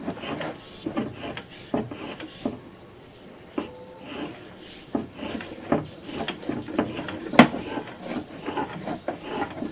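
Sewer inspection camera's push cable being worked back out of the drain line by hand: irregular rubbing and scraping with scattered clacks, and one sharper knock about seven seconds in.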